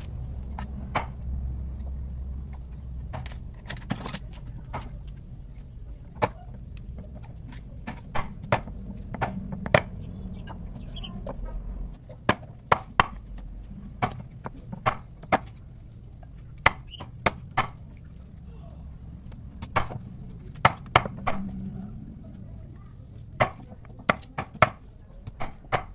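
A large, heavy knife chopping a raw chicken into pieces on a round wooden chopping block: sharp single chops at an uneven pace, in runs with short pauses between them.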